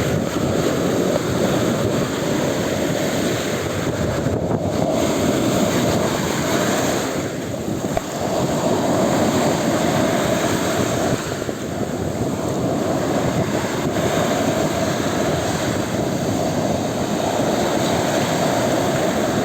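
Stormy sea surf, waves breaking and surging without pause, with strong wind buffeting the microphone.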